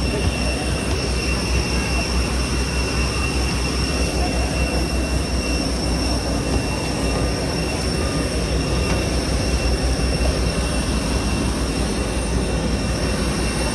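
Steady cabin noise inside an Airbus A321 airliner: an even low rumble with a rushing hiss over it and a few thin, steady high tones.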